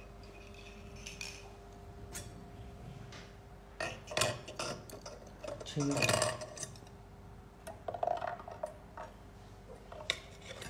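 A small automotive relay is dropped into a glass kettle of water and the kettle's lid is set in place, giving scattered clinks and knocks of glass and metal. The loudest clatter comes about six seconds in, and there are more knocks near the end as the lid goes on.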